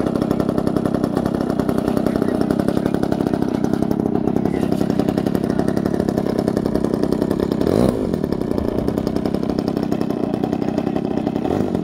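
Gasoline engine of a large radio-controlled aerobatic model airplane running at idle on the ground, a fast steady buzz. About eight seconds in its pitch briefly shifts, and it then runs a little quieter.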